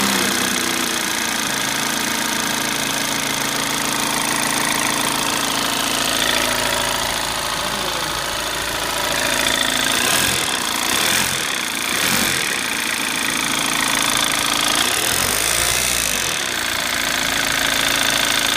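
VW TDI diesel engine running just after starting, with a knocking clatter that is presented as the sound of a failing high-pressure fuel pump. The engine note shifts briefly about halfway through and again a few seconds later.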